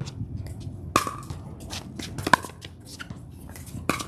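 Pickleball paddles hitting a plastic pickleball back and forth in a rally: three sharp pops about a second and a half apart, with fainter clicks between.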